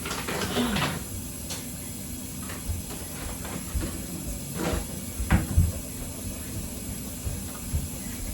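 A few knocks and bumps of things being handled during kitchen cleaning, such as cupboard doors or objects set down, over a steady hiss. The loudest knocks come about five seconds in.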